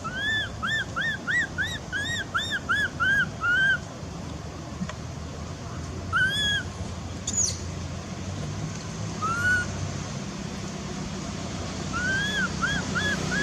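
Animal calls: short, high, arched whistle-like notes. A quick run of about ten comes in the first few seconds, then a few single notes, then another short run near the end.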